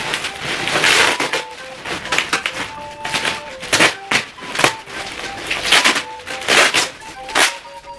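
Plastic packaging bags crinkling and rustling as they are handled and pulled open, in irregular bursts, over soft background music.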